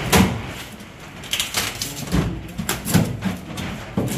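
A few sharp knocks and clicks of hard parts being handled while fittings are sorted out for screwing on, over a low uneven murmur.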